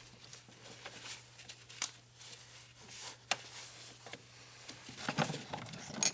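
Scattered light clicks and taps of bolts and metal parts being handled and set in place by hand, busier about five seconds in, over a faint steady hum.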